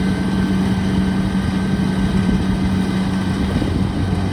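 Heavy farm machine's diesel engine running steadily at constant speed, a loud even hum with a low rumble.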